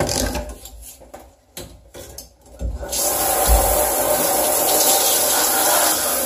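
Close rubbing and knocking for the first few seconds, then about three seconds in a handheld shower head starts spraying water, and the spray runs steadily, pattering onto the item in the shower tray.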